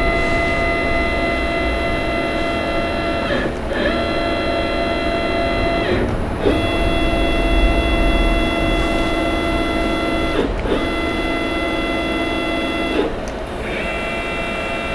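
CNC machine's axis drive motors whining steadily at slow jog, driving one axis after another. The whine breaks off briefly about four times and comes back at a slightly different pitch as each jog move ends and the next begins.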